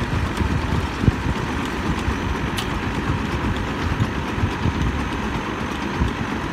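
Engine of a truck-mounted water-well drilling rig running steadily.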